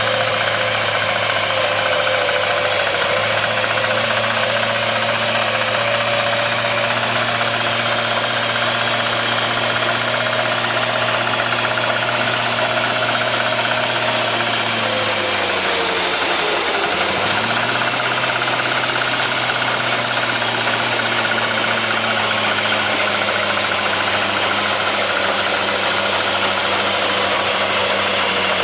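Mini combine harvester running as it harvests wheat: a steady engine hum under a broad mechanical rush. About halfway through, the engine pitch dips for a second or two, then recovers.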